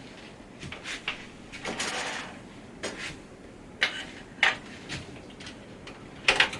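DDR3 memory modules being unlatched and pulled from their motherboard slots: the plastic retention clips click open and the sticks slide out, a series of sharp clicks with a short scrape about two seconds in and a loud double click near the end.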